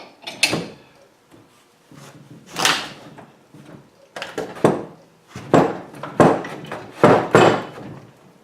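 Steel sleeves and adapter cups from a ball-joint press kit (a U-joint service set) clanking together as they are handled and set down: about ten irregular metal clanks.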